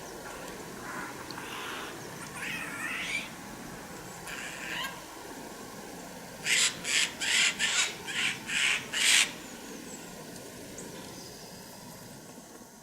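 A bird calling: a few softer calls, then about halfway through a quick run of about seven loud, harsh calls, roughly three a second, over a steady outdoor hiss that fades out near the end.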